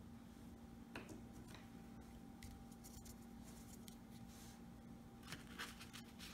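Near silence: room tone with a faint steady hum and a few faint small clicks and taps, one about a second in and a cluster near the end.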